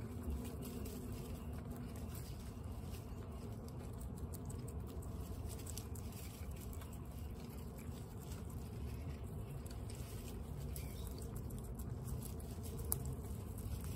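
Guinea pigs crunching dry pellets from steel bowls: a steady run of small crunches and clicks, with one sharper click about a second before the end, over a low background rumble.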